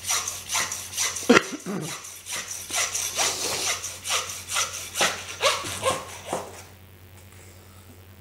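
Butcher's hand bone saw rasping back and forth through a ram's shoulder, about three strokes a second, splitting the joint through the bone; the sawing stops near the end.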